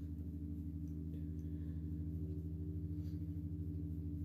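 A steady low hum made of several evenly spaced low tones, with a fast flutter.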